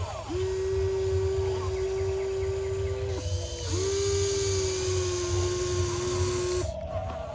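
Small electric motor of a toy RC excavator whining at one steady pitch, running for about three seconds, stopping briefly, then running again for about three seconds.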